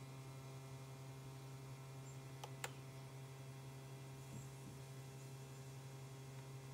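Steady low electrical hum, with two quick clicks of a laptop touchpad button about two and a half seconds in.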